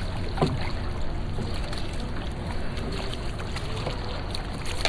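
Water splashing and sloshing around a dragon boat as the crew paddles, over a steady low rumble of wind on the microphone.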